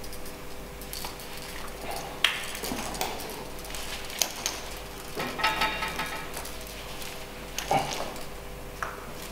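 Metal hose clamps clinking and a rubber gas hose being worked by hand onto its fitting: scattered short clicks and clinks, with a brief metallic ring about five and a half seconds in.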